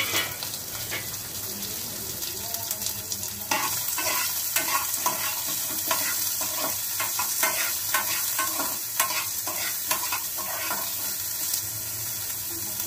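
Garlic and onion frying in hot oil with cumin and moong dal: a steady sizzle, with a spatula stirring and scraping the pan again and again. The stirring gets louder about three and a half seconds in.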